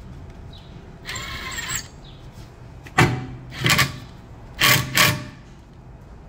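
Tool and part noises from rear brake rotor work: a short rasping whir about a second in, then four loud, sharp clanks.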